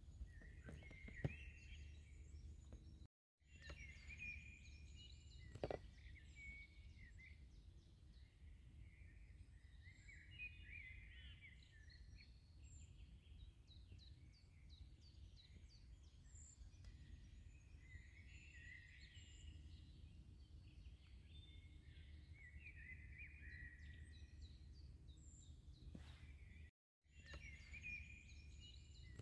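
Faint outdoor ambience of small birds chirping and twittering over a low steady background hum, cut to silence twice for a moment, with a couple of soft knocks in the first few seconds.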